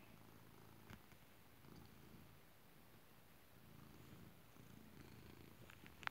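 Domestic cat purring faintly and steadily, with a soft click about a second in and a sharper click near the end.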